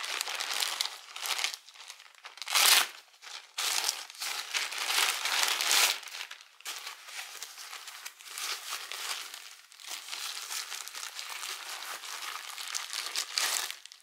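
Plastic postal mailer bag crinkling and rustling in irregular bursts as it is handled and opened. The loudest rustle comes about two and a half seconds in.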